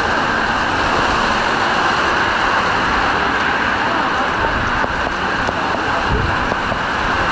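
Heavy rain pouring down in a steady, loud hiss, with cars swishing through standing water on the flooded road.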